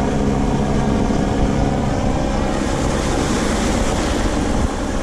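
A steady engine drone over the wash of sea surf and wind on the microphone. The drone's pitched lines are clearest in the first half and fade into the surf noise.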